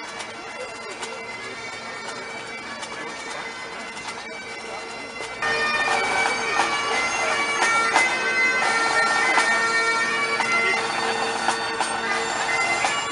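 Bagpipes playing, the drones holding a steady tone under the chanter's melody; the sound gets louder about five seconds in.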